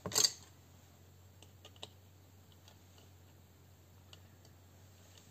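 A short, louder clack right at the start, then a few faint, scattered light clicks as the small parts of an opened airsoft gearbox are handled.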